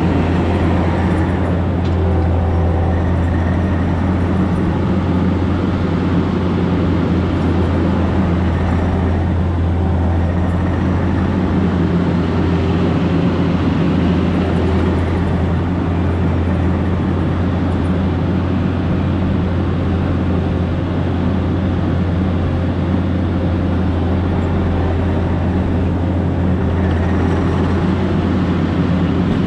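Diesel engine of a compact earthmoving machine running steadily, with a constant low hum.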